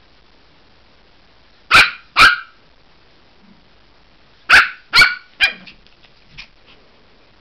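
Maltese puppy barking: two sharp yaps close together, then three more a few seconds later.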